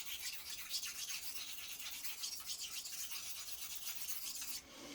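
Steel rubbing back and forth in quick, even strokes on a wet water stone: a steady, fairly faint scraping hiss from honing a straight razor.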